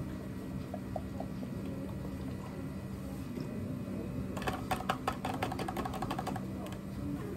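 Soda poured into a plastic cup over a steady low machine hum. About four and a half seconds in come two seconds of rapid clattering and clinking, ice being scooped with a metal scoop.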